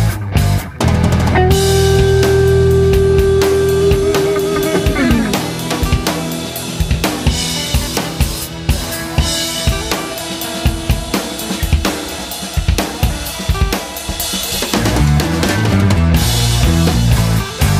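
Background rock music with a drum kit and guitar. A long held note slides down in pitch about five seconds in.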